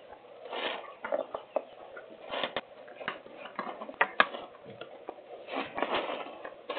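Hurricane wind and rain through a small security-camera microphone: gusty bursts of noise with scattered sharp taps and clicks, one sharper tap about four seconds in.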